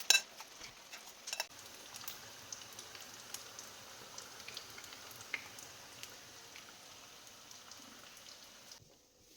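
Hot oil sizzling faintly with scattered small pops and crackles, cutting off suddenly near the end.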